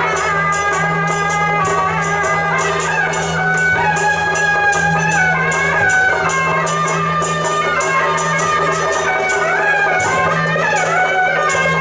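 Traditional procession music: a loud, reedy wind melody gliding up and down over evenly repeated cymbal-like strikes, about three a second, with a steady low hum beneath.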